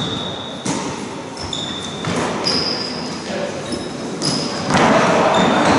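Basketball game in an echoing sports hall: trainers squeak on the court floor in several short, high squeaks, with players' voices. The sound gets louder and busier near the end as players go up for the ball.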